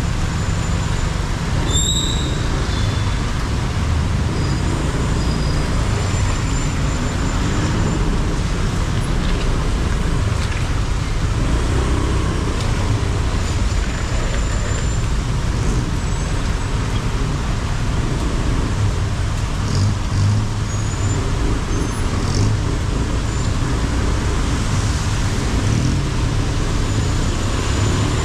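A motorbike riding through heavy city traffic: a steady, dense noise of engines and tyres on the road, with brief faint high squeals coming and going.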